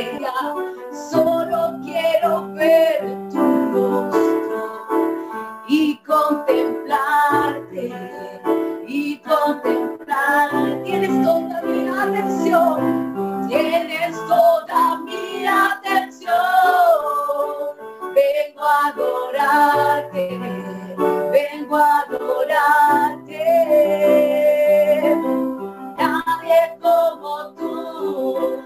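Women singing a worship song over keyboard chords, with long held notes.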